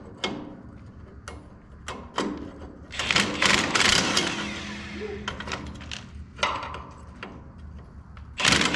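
Hand tools and metal parts clicking and clanking during assembly, with a denser stretch of rapid mechanical clicking from about three to five seconds in.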